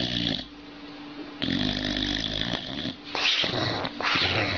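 A boxer dog snoring and grumbling in its sleep: four bouts, the longest a little over a second.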